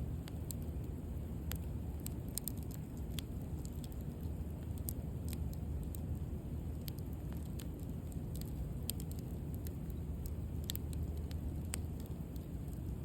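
Wood bonfire burning, with irregular sharp crackles and pops over a steady low rumble of the flames.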